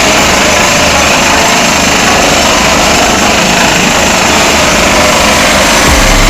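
Industrial vibrator on an induction furnace running, loud and steady; a deeper low hum swells up near the end.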